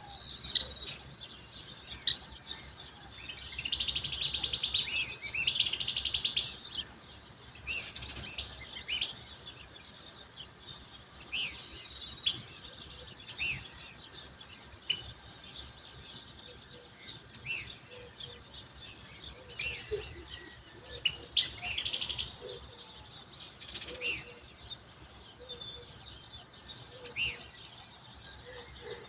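Songbirds in the dawn chorus chirping and tweeting throughout, with a longer, rapid trill about four seconds in and again a little past twenty seconds, over a faint low rumble.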